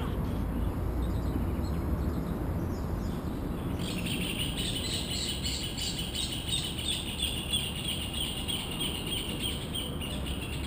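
A pair of rufous horneros singing their duet: a fast run of loud, repeated notes that starts about four seconds in and stops shortly before the end. A steady low background rumble runs underneath.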